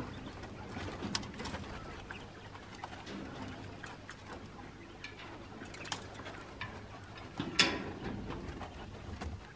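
Captive doves cooing softly in an aviary, with a brief loud sound about seven and a half seconds in.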